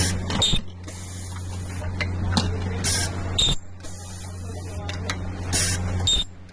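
Ultrasonic plastic welding machine cycling on charger casings: a steady electrical hum, with short hissing bursts of compressed air in pairs, the pairs coming roughly every three seconds as the welder's air-driven press works.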